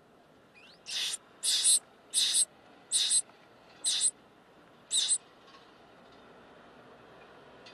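Nestling birds in a nest box giving six harsh, hissy begging screams, about one every 0.8 seconds, as they beg for food.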